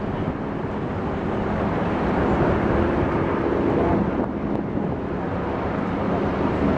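A steady, low engine hum mixed with wind noise on the microphone.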